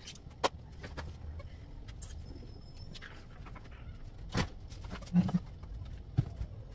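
Rustling and scattered knocks of things being handled while tidying a room: motorcycle helmets being carried and set down on a desk, then a blanket being spread over a bed. The louder knocks fall in the second half, over a low steady hum.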